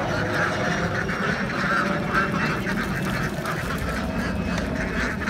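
A large flock of domestic ducks quacking, many calls overlapping into a continuous chatter.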